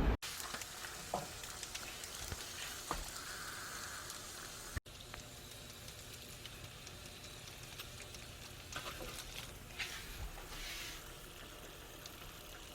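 Food sizzling in a frying pan: a steady crackling hiss with scattered small pops.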